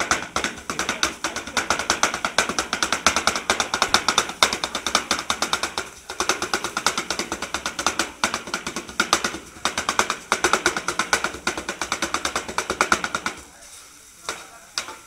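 Two metal spatula blades chopping kottu roti on a metal barbecue hotplate: a fast, rhythmic clatter of metal striking metal, with two brief pauses, stopping shortly before the end.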